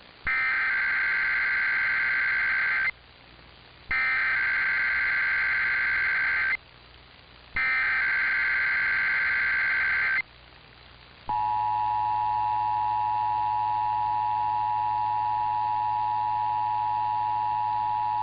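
Emergency Alert System SAME header: three identical bursts of warbling, high-pitched digital data tones, each about two and a half seconds long with about a second's gap between them. About eleven seconds in, the steady two-tone EAS attention signal begins and holds. This is the opening of a new emergency alert message.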